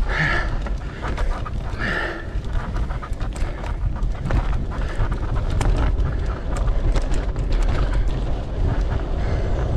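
Mountain bike rolling over rough trail: many sharp clicks and rattles from the bike, over a steady low rumble of wind buffeting the camera microphone. The rider breathes hard near the start and about two seconds in.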